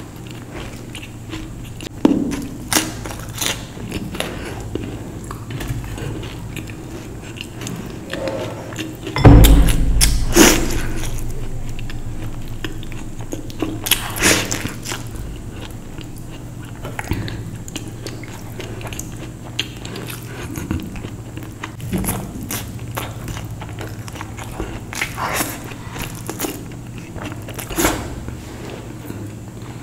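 A person biting and chewing food close to the microphone, with scattered sharp mouth and food clicks. There is a loud thump about nine seconds in.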